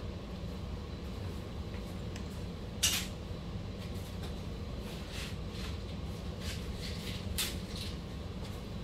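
Small hard clicks and clinks of loose screws and small hardware being handled while a longer screw is picked out. The sharpest click comes a little under three seconds in, with lighter ones scattered through the second half, over a steady low hum.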